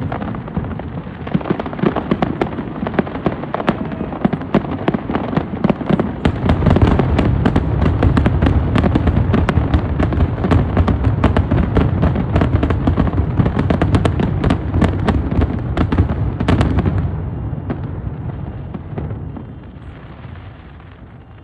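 Aerial fireworks going off in a dense barrage of bangs and crackling. It thickens with heavier booms about six seconds in, then thins out and fades over the last few seconds.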